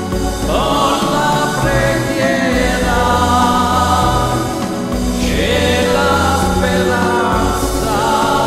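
A man singing into a microphone over a recorded backing track of choir-like held chords and a steady bass line, amplified through a PA. The voice holds long notes, sliding up into them twice.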